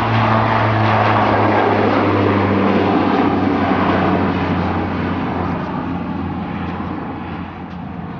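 Bombardier Dash 8 Q400 turboprop airliner at takeoff power, its twin propellers giving a loud droning hum over engine rush as it lifts off and climbs away. The sound fades gradually over the last few seconds as the aircraft recedes.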